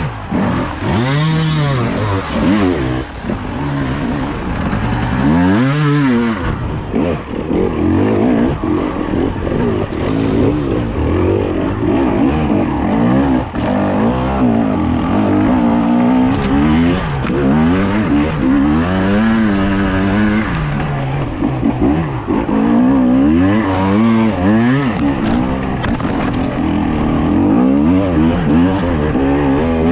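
On-board sound of a two-stroke hard enduro motorcycle engine under constant throttle work on rough climbing terrain. Its pitch rises and falls over and over as the rider blips and rolls the throttle.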